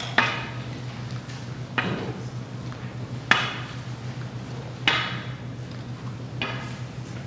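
Chimes struck one note at a time, about every second and a half, each note ringing briefly and fading.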